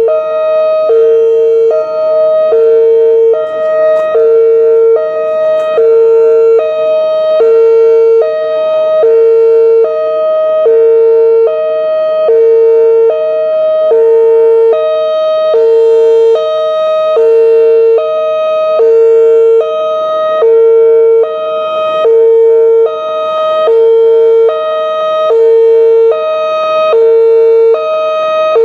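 Whelen WPS-2905 electronic outdoor warning siren sounding its hi-lo signal: a loud, even alternation between a lower and a higher tone, each held a little under a second.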